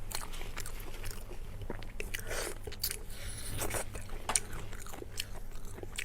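Close-miked chewing and biting of food: irregular wet smacks and crunchy clicks of a mouth eating.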